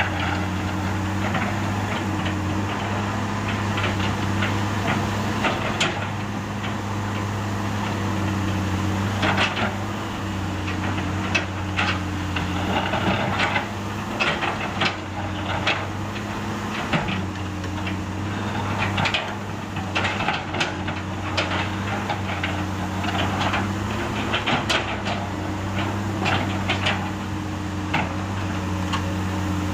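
Diesel engine of a Komatsu PC200 hydraulic excavator running steadily, with frequent knocks and clatter from the bucket working broken asphalt and dropping it into a dump truck.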